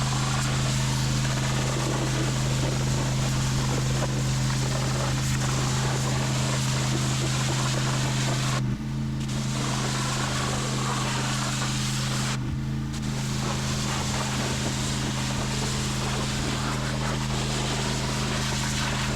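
Pressure washer running steadily with its water jet hissing; the spray cuts out briefly twice, about nine and twelve and a half seconds in, while the engine keeps running.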